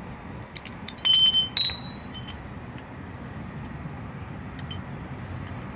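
Two short metallic clinks that ring brightly, about half a second apart, roughly a second in, with a few faint clicks around them over a steady low hum.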